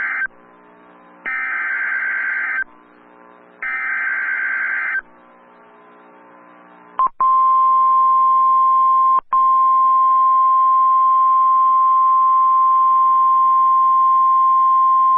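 Emergency Alert System SAME header: the end of one harsh, buzzing digital data burst, then two more about a second and a half long, as broadcast by NOAA Weather Radio. About seven seconds in comes the steady single-pitch warning alarm tone, loud, with a brief dropout about two seconds after it starts, announcing a severe thunderstorm warning.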